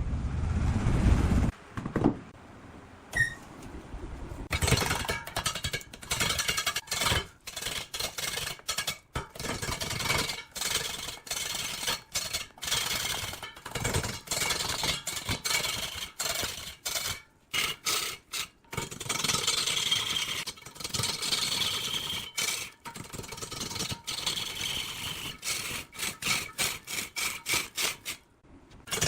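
Woodworking tools cutting and scraping wood in choppy, irregular bursts with many brief gaps.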